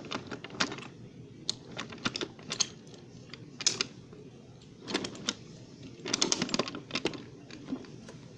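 Small toys being handled on a hard surface: light clicks and clatters in irregular clusters, with short gaps between them.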